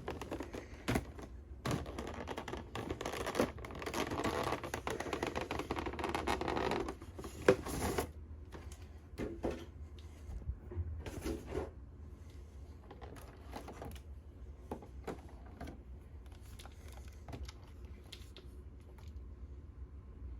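Plastic packaging and a plastic toy being handled while unboxing: rustling and scraping for the first several seconds, then scattered light clicks and taps.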